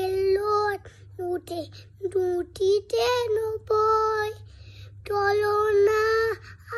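A young child singing alone in a high voice, holding drawn-out, wavering notes in short phrases broken by brief pauses.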